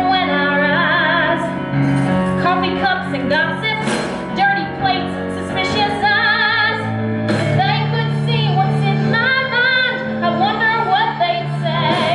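A woman singing a musical-theatre song solo with clear vibrato, over sustained instrumental accompaniment.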